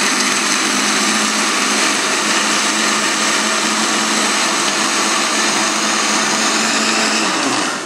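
Countertop electric blender running steadily, whirring as it blends lemon juice, vodka, cucumber and jalapeño slices into a cocktail. Its motor winds down and stops near the end.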